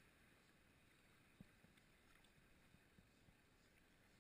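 Near silence: a canoe drifting over shallow river riffles, heard only as a faint steady hiss, with a few soft knocks about a second and a half in and again around the three-second mark.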